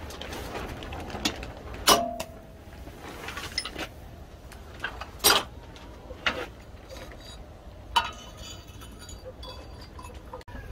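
Sharp clanks and clinks of rusty steel agricultural machinery parts being knocked apart and handled in a bench vise. There are about five separate strikes, the loudest about 2 and 5 seconds in, and one rings briefly.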